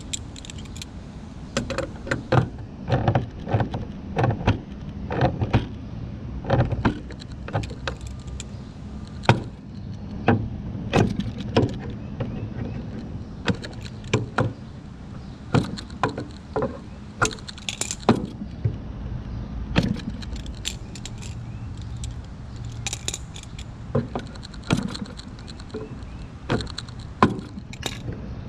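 Irregular metallic clicks and clinks of hand tools working on a small model-airplane engine and its mount, over a steady low hum.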